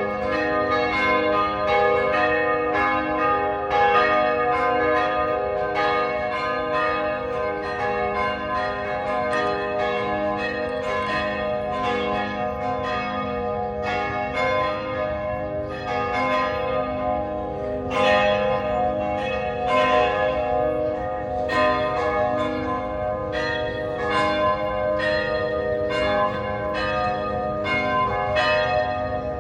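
Several church bells pealing together, struck over and over in quick, uneven succession, their tones ringing on and overlapping.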